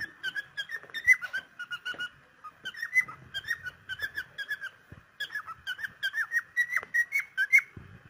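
Cockatiel whistling: quick strings of short, chirpy whistle notes that bend up and down in pitch, several a second. The notes come in three runs with brief pauses between them.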